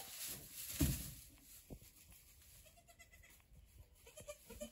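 Pygmy goats bleating faintly a few times, with one sudden dull thump about a second in that is the loudest sound.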